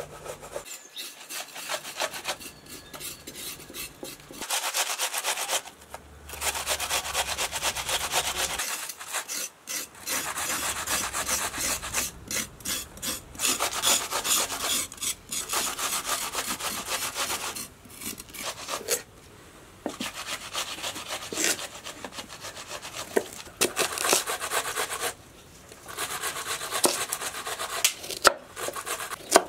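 Vegetables rasped on a metal box grater and carrots scraped with a kitchen knife: runs of quick rasping strokes with short pauses. Near the end, a few sharp knocks of a knife cutting carrot on a wooden board.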